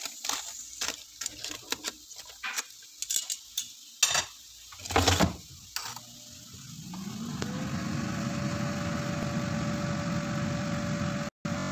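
Clicks and clatter of an air fryer's foil-lined basket being handled and pushed back in, then the air fryer's fan starting up a little past halfway with a rising whine and settling into a steady hum.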